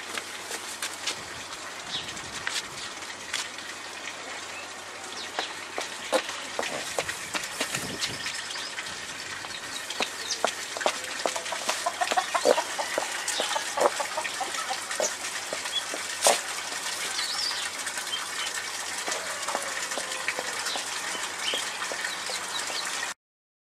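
Chickens clucking, with wing flaps and scattered clicks and rustles over a steady hiss; a run of short clucks comes about halfway through, and everything cuts off suddenly near the end.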